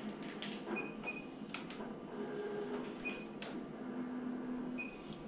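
Graphtec cutting plotter's control-panel keys beeping: four short high beeps with key clicks. A low motor whir in the middle is the plotter making a test cut to check the blade depth.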